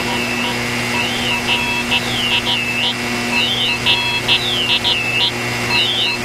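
Shortwave radio reception on 4020 kHz: static hiss under the steady, buzzing multi-tone drone of the 'Airhorn' channel marker. From about a second in, a repeating warbling overlay joins it, a signal drawn so that its spectrogram spells out 'XENU'.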